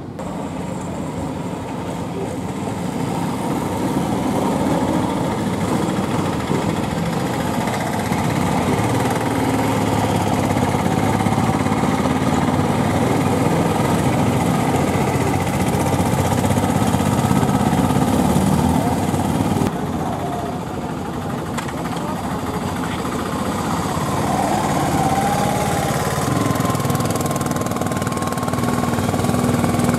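Passenger-laden three-wheeler auto rickshaws running under load with the steady drone of their small single-cylinder engines as they round a hairpin bend and pass close by, growing louder over the first few seconds, with a motorcycle engine among them.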